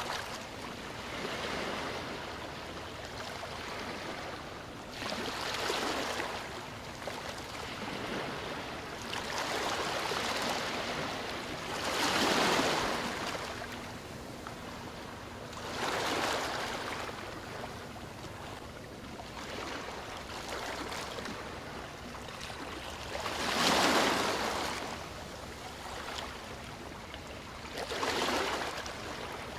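Sea waves breaking and washing on a shore, a steady rush of surf with a louder wave swelling and falling back every few seconds.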